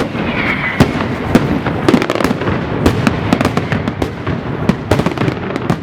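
Fireworks going off in a rapid, uneven barrage: sharp bangs about twice a second over a continuous crackle.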